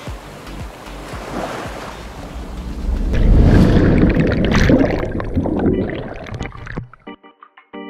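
Wind and water noise on the microphone, then about three seconds in a loud rush of splashing and bubbling as the camera plunges under the sea surface. It cuts off near the end.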